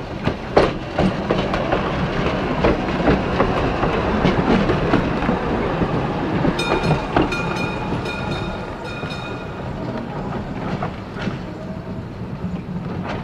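A 1926 Melbourne SW2 class electric tram running along the track, its wheels rumbling and clicking over the rail joints. A high-pitched tone comes and goes for about three seconds midway.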